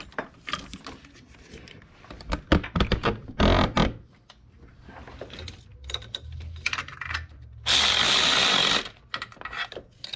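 Hand tools clicking and clanking on engine parts, with what sounds like a ratchet wrench working. A loud, steady hiss lasting about a second comes near the end.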